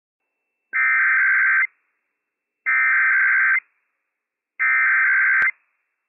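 Emergency Alert System SAME header: three loud, shrill bursts of digital data tones, each about a second long and about a second apart, encoding the Required Weekly Test alert. A brief click sounds near the end of the third burst.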